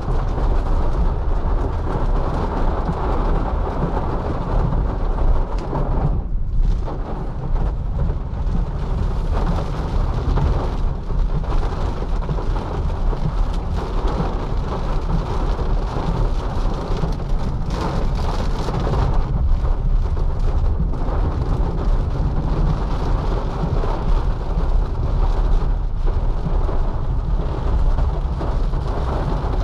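Heavy rain on a Nissan Leaf electric car, heard from inside the cabin as a steady wash of noise over a constant deep rumble.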